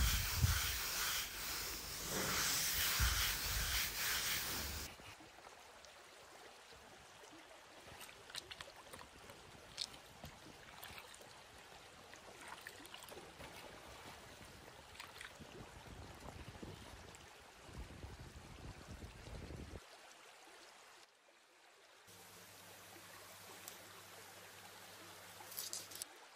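Shallow seawater splashing and sloshing as a large metal tray is scrubbed and rinsed in it by hand, loudest for the first few seconds. Then quieter splashes, small knocks and trickling as water runs off the tipped tray, with a low steady hum in the last few seconds.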